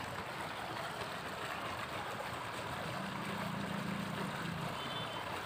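Steady outdoor background noise, with a low hum that comes in about three seconds in and fades out a second and a half later.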